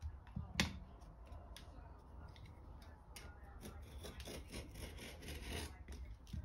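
A sharp blade cutting a round patch out of grey inflatable-repair patch material on a wooden chopping board, giving faint, irregular scratching and scraping strokes. There is one sharp click about half a second in.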